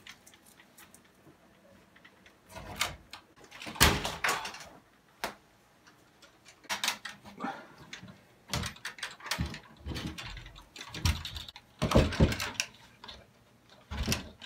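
Scattered knocks, scrapes and rustling from handling a wooden infrared sauna wall panel and pulling packing tape off it, with the longest, loudest bursts about four seconds in and again near twelve seconds.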